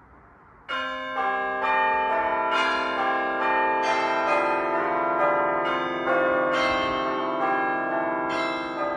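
A peal of tuned bells: from just under a second in, a new note is struck every half second to a second, each ringing on under the next.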